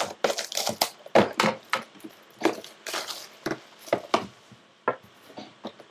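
A sealed box of trading cards being torn open by hand: a quick run of sharp crackles, rips and snaps of packaging that thins out toward the end.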